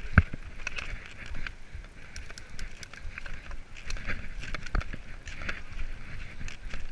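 Mountain bike rolling fast over a rough, muddy dirt trail: tyre noise with frequent rattles and knocks from the bike over bumps, and wind on the microphone. One hard knock just after the start.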